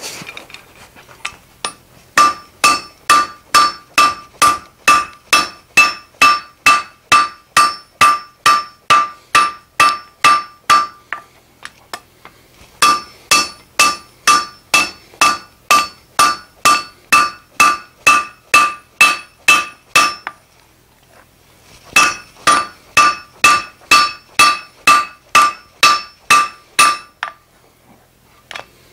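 Blacksmith's hand hammer striking red-hot steel on an anvil, about three blows a second, with each blow ringing. The blows come in three runs with short pauses between them. The steel is being forged into the chisel-shaped cutting edge of a hardy.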